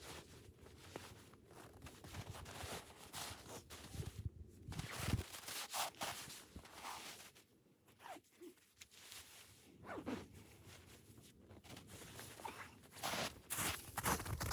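Faint, irregular rustling and scraping, with a few short sweeping strokes.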